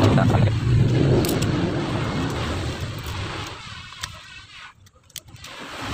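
A motor vehicle's engine running close by and fading away over the first few seconds, with a few light clicks near the end.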